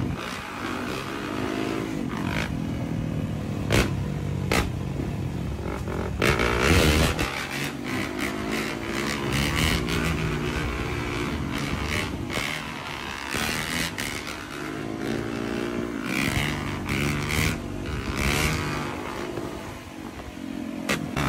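Dirt bike engines revving up and easing off again and again, the throttle worked to hold a wheelie, with a few sharp clicks along the way.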